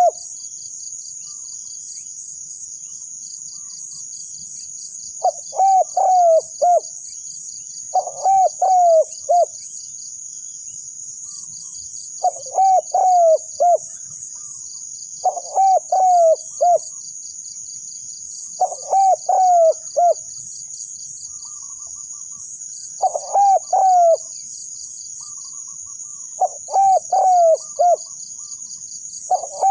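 Spotted dove cooing: short phrases of three or four notes, repeated about every three to four seconds, over a steady shrill insect chorus.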